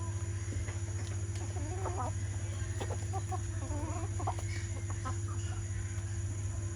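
Chickens clucking: a cluster of short, wavering calls from about one and a half to four and a half seconds in, over a steady low hum.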